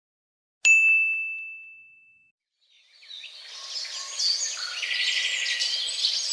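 A single bright ding, struck once and fading out over about a second and a half. Then a chorus of birds chirping fades in about three seconds in.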